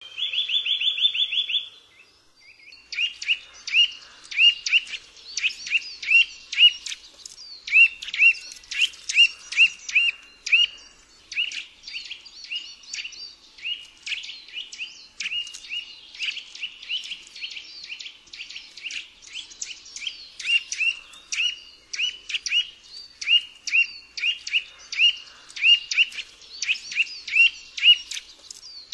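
Eurasian nuthatch calling: a quick, even trill of about ten notes at the start. Then, after a short pause, a long series of short downslurred whistled notes, several a second, over fainter higher chirps.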